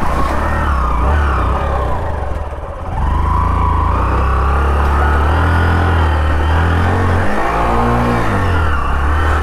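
Hero Passion motorcycle's single-cylinder engine running as the bike rides slowly along a muddy track through puddles, with a wavering whine over it. The engine dips briefly about two seconds in, then runs louder and steadier.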